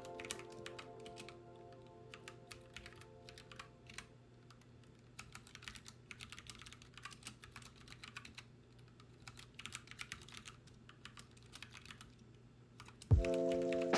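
Typing on a computer keyboard: quick irregular keystroke clicks in spurts with short pauses. Background music fades out at the start and comes back abruptly with a low thump near the end.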